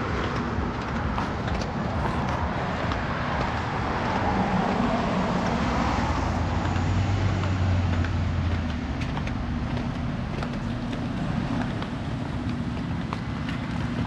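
Onshore wind buffeting the microphone: a steady low rumble and rush.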